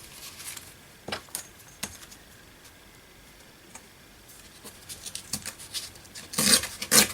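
Sheets of craft paper being handled and moved about on a table: a few light taps and clicks at first, then a run of rustling that grows louder near the end.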